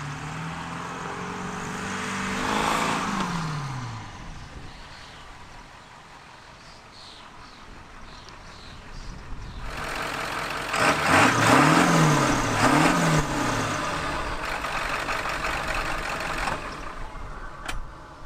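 A 1995 Ford F-350's 7.3 L Powerstroke turbo-diesel V8 revving. The engine climbs and drops back over the first few seconds. About two-thirds of the way through it gives two quick revs up and down, the loudest part. There is a single sharp click near the end.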